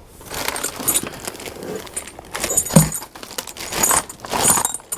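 Rummaging through a lawnmower's shipping box: irregular rustling and rattling of the packing and loose parts, with a dull knock about three seconds in.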